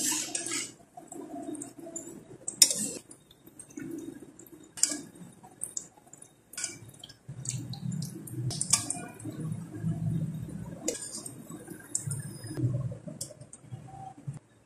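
Wire-mesh skimmer clinking and scraping against an aluminium kadhai as fried shakarpara are scooped out of hot ghee, with soft liquid sounds from the oil. A few separate clicks are spread through it.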